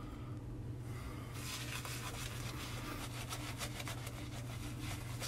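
Shaving brush scrubbing lather onto a bare scalp: a quick run of scratchy strokes starting about a second and a half in, over a steady low hum.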